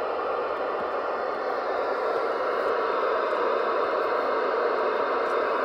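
CB radio static: a steady hiss from the radio's speaker between transmissions, with no voice on the channel.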